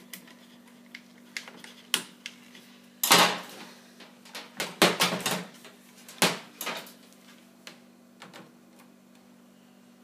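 Handling noise as a screwdriver and wire leads are worked at a fridge's compressor unit: scattered clicks and knocks, loudest in clusters about three and five seconds in.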